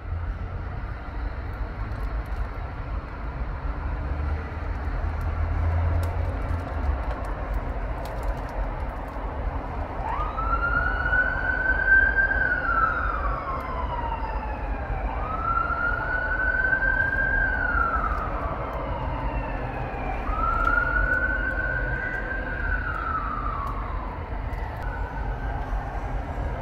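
Road traffic rumbling, then about ten seconds in an NHS ambulance siren starts a slow wail. Each cycle rises quickly, holds, then falls away over several seconds, repeating about every five seconds, with a fainter cycle near the end.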